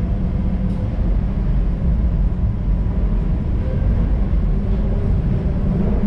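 Madrid Metro Line 10 train running steadily: a continuous low rumble with a faint steady hum above it.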